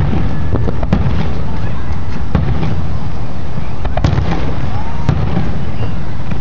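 Fireworks display shells bursting: a string of about five sharp bangs, one to two seconds apart, over a continuous low rumble.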